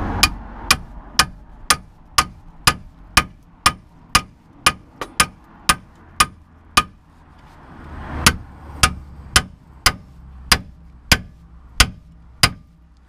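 Steady hammer blows on a steel ball joint splitter, driving it in to break the seized taper of the lower suspension arm's ball joint on a VW Golf Mk4. The sharp metallic strikes come about two a second, stop briefly about seven seconds in, then carry on.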